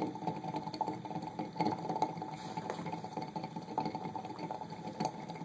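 Water at a rolling boil, bubbling steadily with many small pops and crackles.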